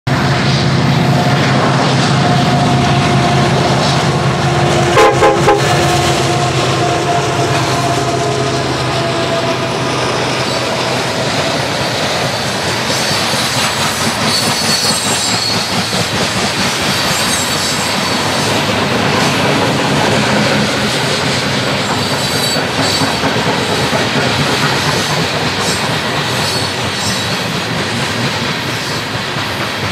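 Loaded coal train climbing a grade: the diesel locomotives' engines are loud in the first few seconds as they pass, with a burst of sharp knocks about five seconds in. Then the loaded coal hopper cars roll by, their wheels clattering on the rails with intermittent high-pitched wheel squeal.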